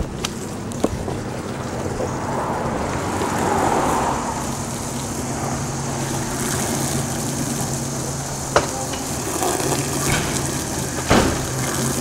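Garden hose spraying water onto pavement, a steady hiss, with two short knocks near the end.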